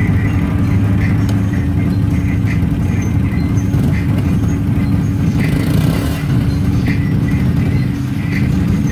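ATV engine running at a steady speed, a loud low drone that holds one pitch without revving.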